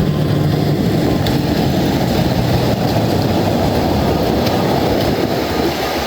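A heavy truck's diesel engine running steadily under load, a dense rumble with a rushing noise over it.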